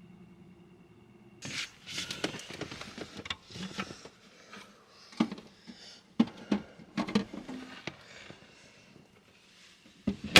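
Rustling, clicks and knocks of things being handled inside a small van cabin, with one sharp knock near the end. A faint steady hum plays for about the first second and cuts off suddenly.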